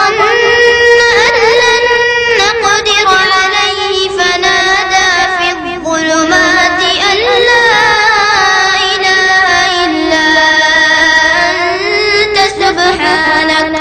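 A child's voice reciting the Quran in melodic style, in long ornamented phrases whose pitch glides and wavers up and down.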